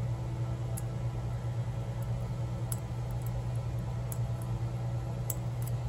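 A steady low hum runs throughout, with about five faint, very short high clicks scattered across it. The clicks fit light metal contacts of lock-picking tools working a padlock.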